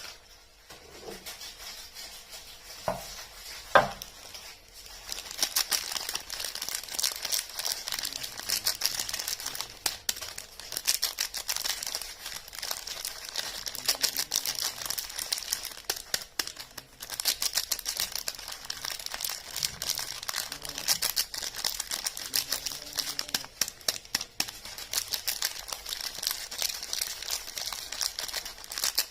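Soap packaging being handled and unwrapped: continuous close crinkling and rustling of wrappers, with two sharp knocks about three and four seconds in, the second the louder.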